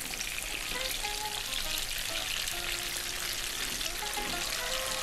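Kingklip fish steaks frying in hot oil in a pan, a steady sizzle with fine crackling, with quiet background music notes underneath.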